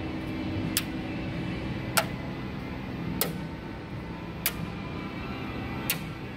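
Small round magnet clicking onto a car's steel body panel: five sharp clicks, a little over a second apart, as it is set down again and again along the panel.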